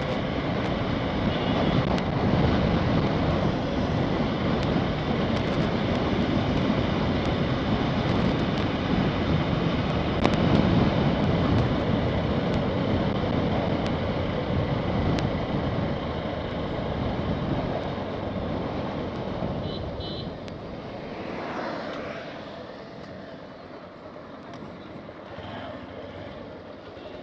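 Wind rushing over a helmet-mounted phone's microphone, mixed with the motorcycle's running and road noise while riding. It dies down over the last several seconds as the bike slows.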